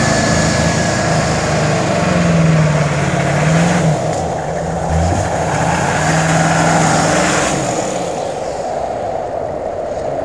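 Vehicle engine revving up and down, its pitch rising and falling twice, as the truck's wheels spin in deep snow without grip. A steady wind-like hiss runs underneath.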